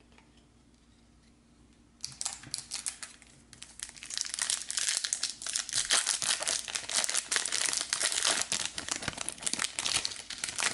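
A foil Garbage Pail Kids Chrome trading-card pack being torn open and its wrapper crinkled in the hands. It starts about two seconds in and gets louder and denser about four seconds in.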